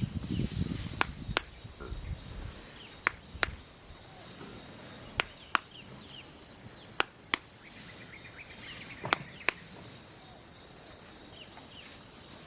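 Manual rice harvesting: sharp, crisp snaps in pairs, one pair about every two seconds, from rice stalks being worked by hand. Faint bird or insect chirps sound in the background.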